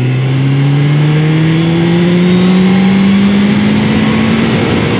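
1996 Suzuki GSX-R750 SRAD's carburetted inline-four engine pulling hard in third gear, its pitch rising steadily as it accelerates, over wind rush.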